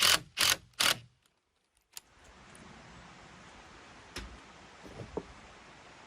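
Rhythmic hand-tool strokes on a wooden branch, about three a second, stopping about a second in. After a brief silence, a quiet outdoor background with a few light clicks and knocks.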